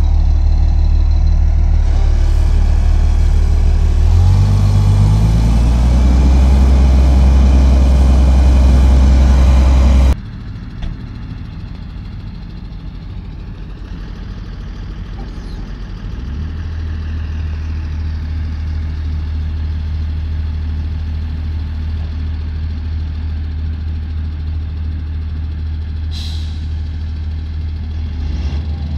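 A Vredo VT 4546 self-propelled slurry applicator's diesel engine runs close by, docked to a slurry tanker to fill, and revs up about four seconds in. After a sudden cut about ten seconds in, a Fendt 930 tractor's diesel idles steadily, a little louder some six seconds later.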